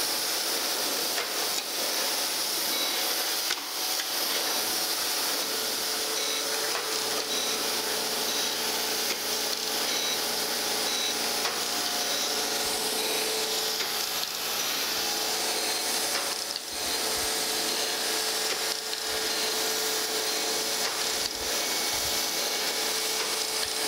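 Landis surface grinder's wheel grinding the angled face of a cast metal sled: a steady, even hiss of the wheel cutting metal, with a steady hum underneath.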